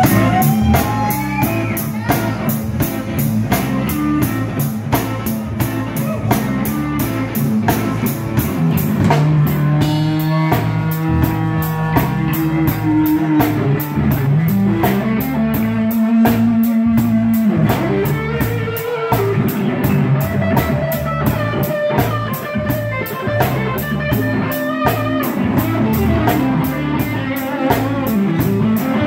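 Live rock band playing an instrumental passage: electric guitar over electric bass and drum kit, with held and bending guitar notes.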